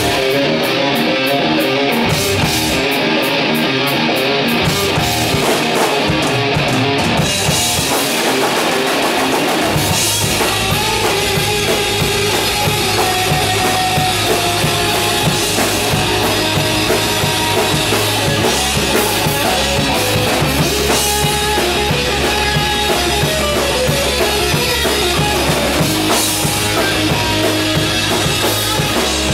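Hard rock band playing live without vocals: two distorted electric guitars, electric bass and drum kit. For roughly the first ten seconds the bass end is thin under the guitars and cymbals. About ten seconds in, the bass and kick drum come in and the full band plays on.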